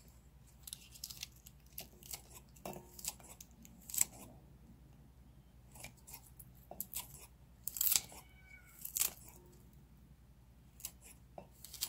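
Kitchen scissors snipping peeled garlic cloves into a bowl: a scattered series of short, sharp snips and clicks, with a few louder ones around the middle and later on.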